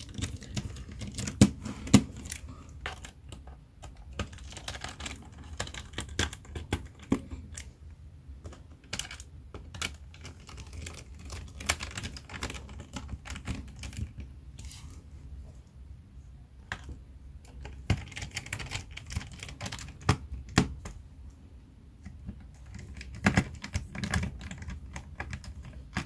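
Irregular small clicks and taps of a Phillips screwdriver tightening the screws of a Dell Latitude 7290 laptop's bottom cover, with hands handling the laptop.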